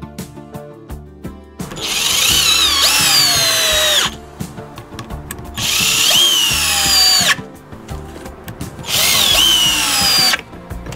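Favourite DC 1802 Promo 18 V cordless drill-driver driving screws into a wooden beam: three runs of about two seconds each. In each run the motor's whine rises briefly, then falls in pitch as the screw goes in, then stops. Background music plays underneath.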